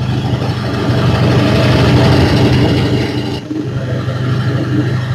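Van engine running as the van drives past, growing louder over the first two seconds, then dropping abruptly about three and a half seconds in to a quieter, steadier engine sound as the van pulls away.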